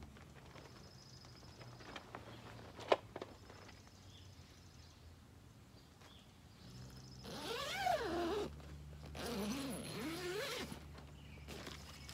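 A single sharp click about three seconds in, then a tent door zipper pulled open from inside in two long strokes. Each stroke rises and falls in pitch with the speed of the pull.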